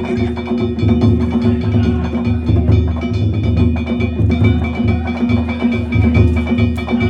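Danjiri festival percussion (narimono): a big drum beaten in quick repeated strokes under the steady ringing of struck metal gongs.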